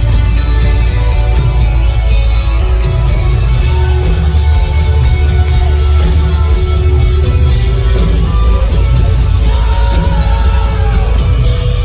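Live rock band playing loudly, with electric guitar over heavy, steady bass.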